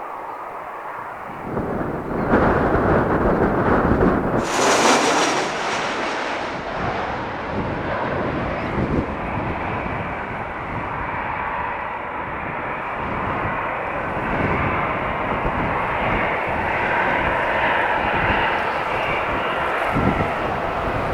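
Airliner engines at an airport, growing sharply louder about two seconds in, with a brief high hiss about four to five seconds in, then running steadily and loud.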